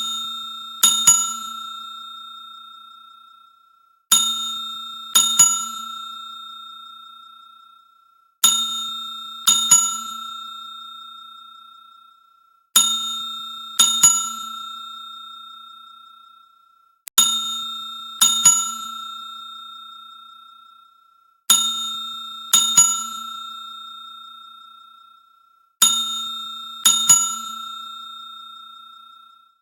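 Front desk service bell dinged three times, one ding then a quick double ding about a second later, repeated about every four seconds. Each ding rings on a bright metallic tone that fades away over a few seconds.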